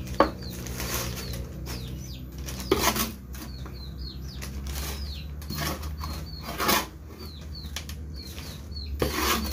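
Small birds chirping over and over in short, quick downward notes, with a few loud rustling, scraping noises in between.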